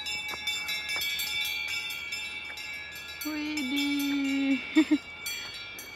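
Cowbells on grazing cows clanking and ringing, a jumble of overlapping bell tones and frequent clanks. A woman's voice hums briefly a little past the middle.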